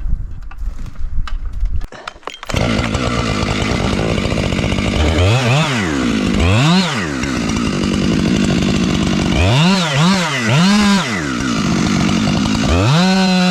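A few knocks and thumps, then a chainsaw cuts in about two and a half seconds in. It is revved several times, each blip rising to a high whine and falling back, and near the end it is held at full throttle.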